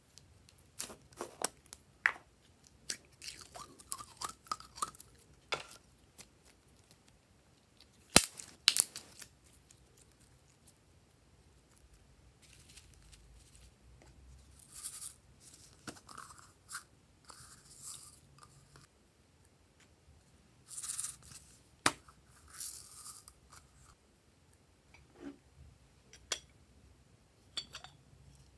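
Handling of plastic and ceramic add-in containers: sharp clicks and taps as they are opened and set down, the loudest about eight seconds in, then soft rustling and scraping bursts as their contents are tipped out.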